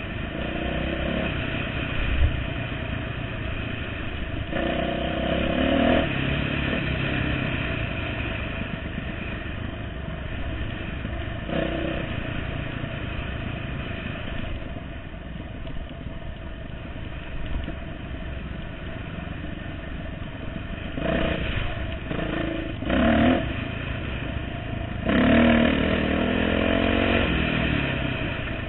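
Dirt bike engine running under way on a rough trail, its revs rising in short bursts several times: once about five seconds in, again near twelve seconds, and a cluster of throttle blips near the end.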